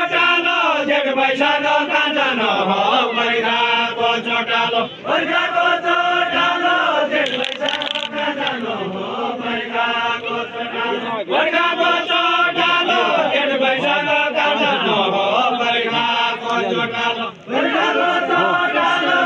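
Deuda folk singing: voices chanting a sung verse in long, gliding phrases, broken by short pauses about every six seconds.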